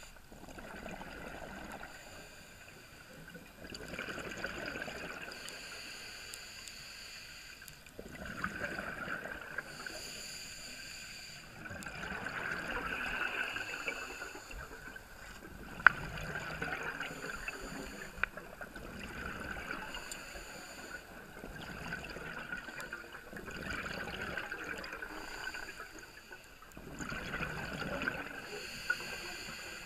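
Scuba diver breathing through a regulator underwater: a hissing inhale followed by a burst of bubbling exhaust, repeating about every four seconds. A single sharp click sounds a little past the middle.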